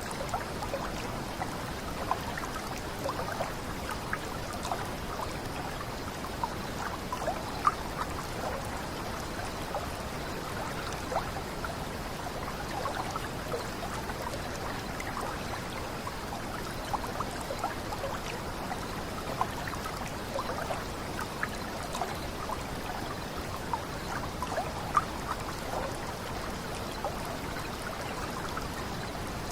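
Water running over a small cascade: a steady rush of flowing water, dotted with many small splashes and trickles.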